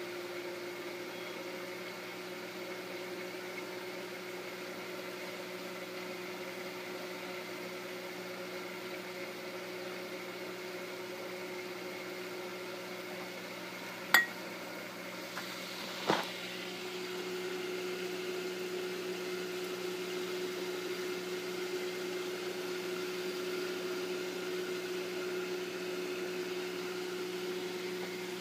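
Kitchen range hood fan running with a steady hum, broken by two sharp clicks midway through and slightly louder after the second.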